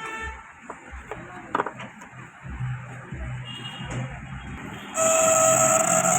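A few handling knocks and clicks, then about five seconds in the microwave oven's cooling fan motor, taken out of the oven, starts and runs with a loud steady hum and whine. This is the very loud noise that is this fan motor's fault.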